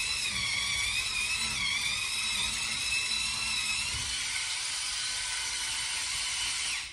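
Electric spin scrubber's motor running with its glass-cleaning pad spinning against window glass: a steady high whine whose pitch wavers slightly, cutting off suddenly at the end.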